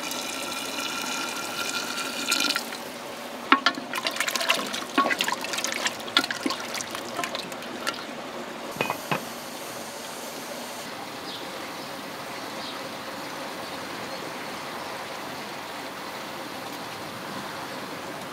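Hot water pouring into an aluminium pressure cooker with a steady filling tone for the first couple of seconds. Then a run of metal clanks and clicks as the aluminium lid is set on and clamped down with its bar, followed by a steady background hiss.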